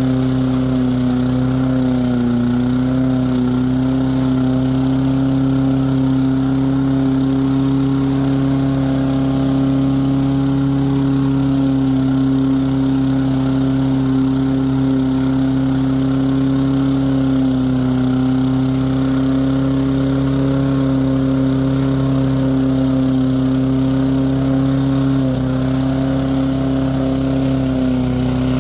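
Poulan push mower's small petrol engine running steadily under load as the mower is pulled backward through grass. It holds its speed without bogging down, with only a slight dip in pitch about two seconds in.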